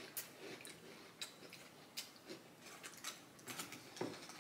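Faint, irregular clicks of someone eating crunchy cereal with a spoon from a glass bowl.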